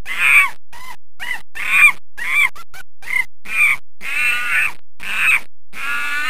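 Cartoon character vocalizing: a rapid run of short, pitched calls that bend in pitch, about two a second.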